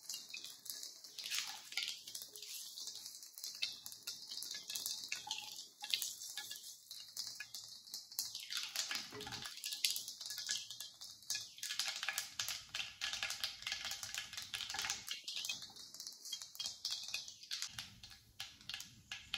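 Mustard seeds spluttering in hot sesame oil: a dense, irregular run of small pops and crackles. This is the tempering stage, when the oil is hot enough for the seeds to burst.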